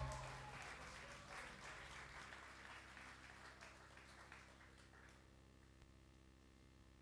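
Faint audience applause with scattered individual claps, fading out over the first five seconds or so. Near silence with a steady low hum follows.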